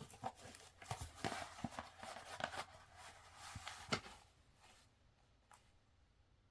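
Rustling and irregular clicks of an album's paper and plastic packaging and inclusions being handled and opened, dying away about four seconds in.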